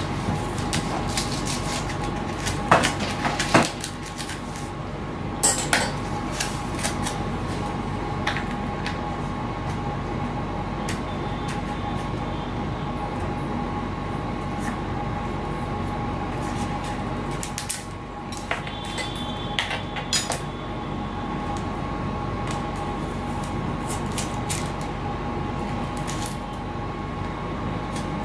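Scattered light knocks and clatter of tools and parts being handled and set down on a workbench, over a steady background hum with two faint steady tones.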